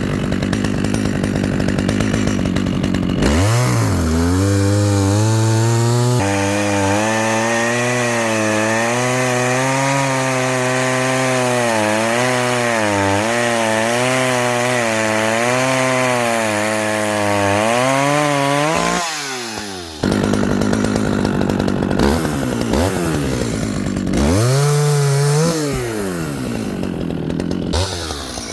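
Dolmar two-stroke chainsaw revved up a few seconds in and held at high speed, its pitch wavering under load as a sharp brand-new chain cuts a piece off a tree. It drops back to idle shortly before two-thirds of the way through, then is blipped up briefly twice near the end.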